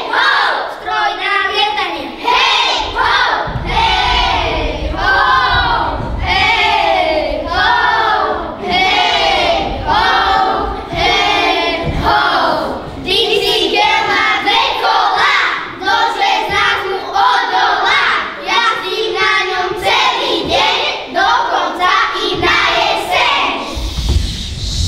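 A group of children singing loudly together in short, rhythmic phrases that repeat about once a second.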